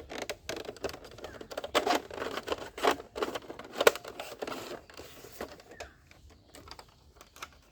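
Hard plastic toy guns being handled, with irregular clicks, knocks and rustling that thin out about six seconds in.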